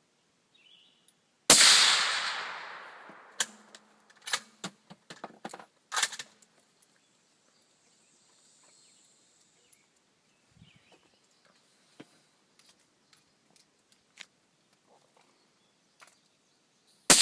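A suppressed shot from a 7.62×51 bolt-action rifle fitted with a Surefire 762SS suppressor, its report rolling away in a long fading echo. Two to five seconds later comes a quick run of sharp metallic clicks as the bolt is worked, then a second suppressed shot right at the end.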